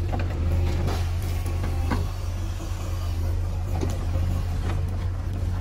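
JCB 3DX backhoe loader's diesel engine running steadily under work with its loader arm, a deep even drone, while dumped mud and clods knock faintly against the tractor trolley a few times.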